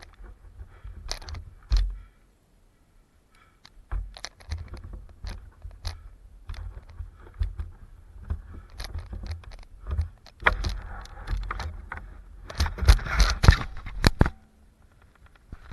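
Mountain bike clattering and rattling as it is ridden over a rough dirt trail: repeated sharp knocks and rattles over a low rumble, dropping away for a moment early on and growing denser and louder about two thirds of the way through.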